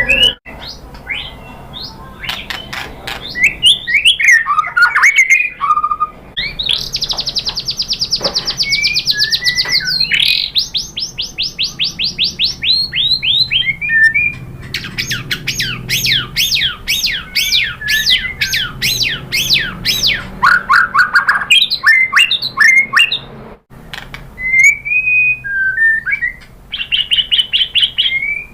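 White-rumped shama singing loudly: a varied run of clear whistled slurs broken by long rapid-fire trills of quickly repeated sweeping notes, the 'tembakan' bursts of its song.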